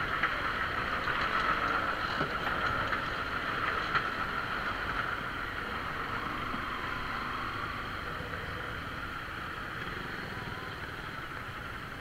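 Motorcycle engine running at low speed with road and wind noise on the bike-mounted camera. The sound eases off over the second half as the bike slows and pulls up.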